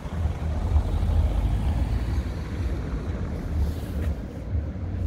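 A car driving past over cobblestones, heard under a fluctuating low rumble of wind buffeting the microphone.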